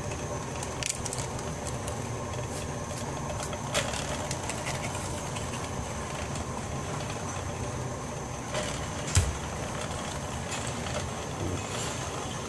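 Steady low rumble and hiss, with a few light clicks and one dull knock about nine seconds in.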